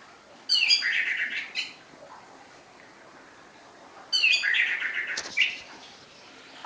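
Orange-headed thrush singing two short phrases about three and a half seconds apart. Each phrase is a quick run of high, falling notes that goes into a rapid chatter.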